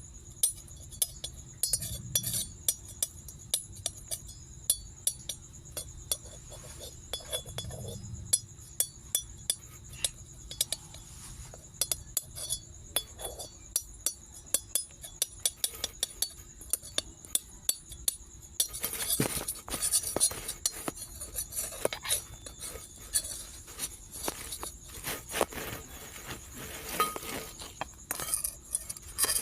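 Metal spatulas clinking, tapping and scraping on a flat roti griddle: sharp metallic clacks a few times a second, with a denser, noisier stretch of scraping starting about two-thirds of the way in.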